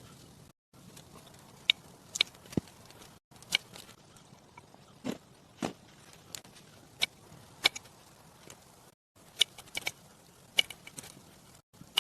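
About a dozen sharp, irregular knocks and crunches over a low hiss, like hands working with wood or snow. The background cuts out abruptly four times.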